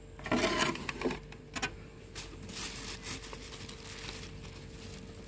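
Black plastic sheeting crinkling and a thin plywood board knocking lightly as the board is laid on top of the plastic and pressed down by hand: a loud rustle about half a second in, two sharp clicks, then softer rustles.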